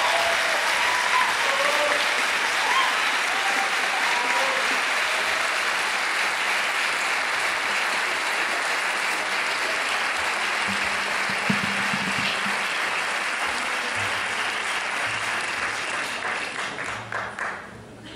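Audience applauding steadily, thinning out near the end into a few scattered claps before dying away.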